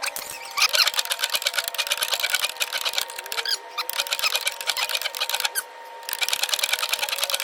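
Hand ratchet clicking rapidly in two long runs, with a short pause about six seconds in, as the coilover ride height is being adjusted.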